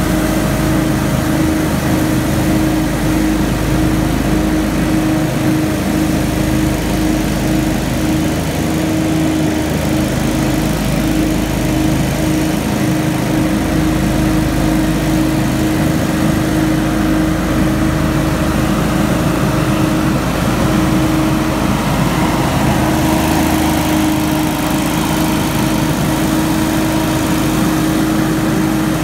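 Hurricane X3 stand-on leaf blower running steadily, its engine and fan holding one even pitch as it blows leaves across a lawn.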